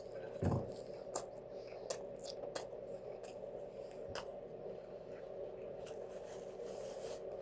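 Close-up eating sounds from a burrito: chewing with scattered sharp mouth clicks, and a thump about half a second in, over a steady low hum.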